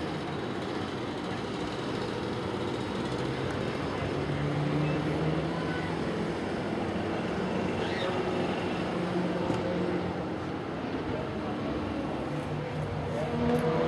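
Car engines running steadily, their pitch drifting slightly, with faint voices in the background.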